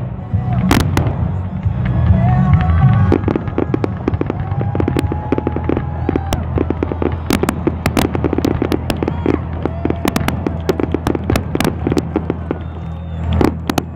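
Aerial fireworks shells bursting in a barrage of sharp bangs, one loud bang near the start, then a rapid, dense volley from about three seconds in.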